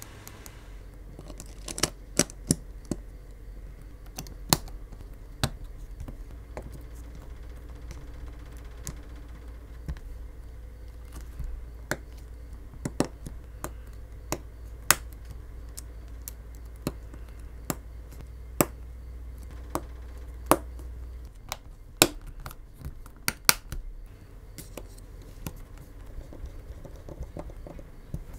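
Irregular sharp clicks and taps of Samsung Galaxy S24 internal parts being set into the phone's frame and connectors snapped into place by hand, a few louder snaps among lighter ticks.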